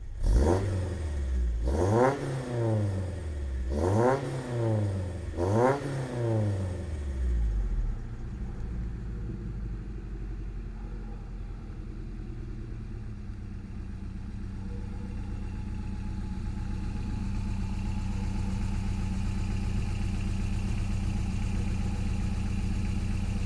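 Pickup truck engine blipped three times, its pitch climbing and dropping back each time, then settling into a steady idle.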